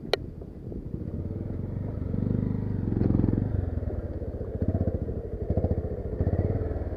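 Motorcycle engine running at low speed, its firing pulses swelling about two to three seconds in and then rising and falling. A single sharp click comes just after the start.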